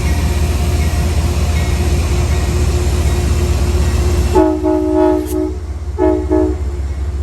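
Train running close by with a loud, steady rumble, then its multi-note horn sounds about four seconds in: a longer blast followed by two short ones.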